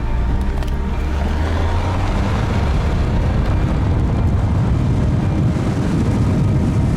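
Steady, low rumble of a vehicle on the move, like road and engine noise inside a car.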